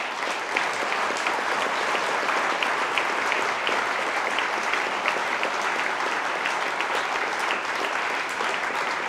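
Large audience applauding, many hands clapping in a steady, dense patter.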